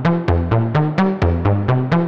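Background music: an electronic track with a steady fast beat, about four to five beats a second, over a moving bass line.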